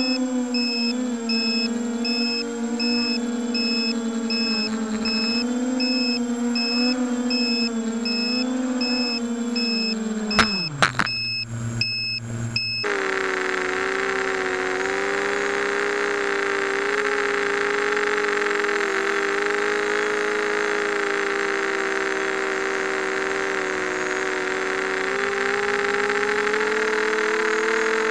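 Brushless motors and propellers of a 250-size FPV racing quadcopter whining, recorded by the onboard camera. About ten seconds in the pitch drops sharply as the motors wind down, with a couple of sharp knocks. After a brief break the whine comes back steady and higher, with a rushing hiss. In the first part a faint high beep repeats about every 0.7 s.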